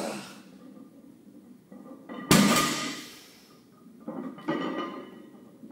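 A barbell loaded with 495 lb of plates set back down on the lifting platform between deadlift reps: one loud thud and clank about two seconds in that trails off quickly, then a couple of lighter knocks.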